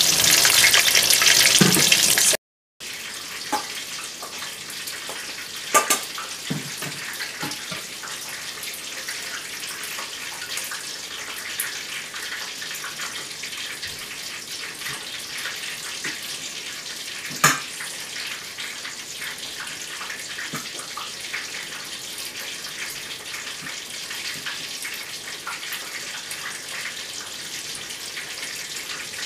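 Breaded chicken deep-frying in a pot of oil: a loud, steady sizzle that stops suddenly about two and a half seconds in. After that comes a much quieter steady hiss with a few sharp clinks from metal bowls as more chicken is coated in crumbs.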